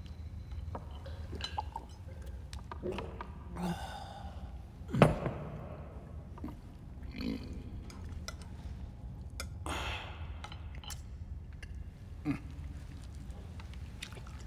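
A man's low guttural grunts and heavy breaths, the loudest a falling grunt about five seconds in, over a steady low drone, with a few small clicks.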